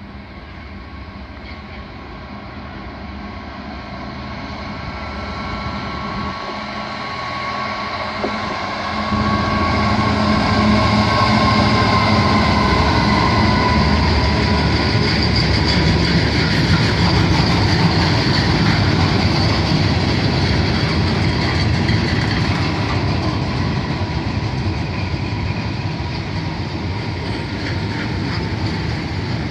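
EWS Class 66 diesel-electric locomotive, with its two-stroke V12 engine, approaching and passing at close range, hauling a train of loaded steel coil wagons. The sound builds over the first nine seconds, with a steady high whine over the engine. The wagons then roll past with a steady rumble.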